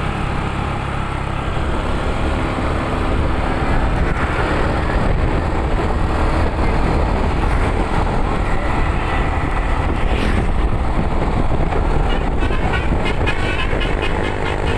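Tour bus on the move: steady engine and road noise.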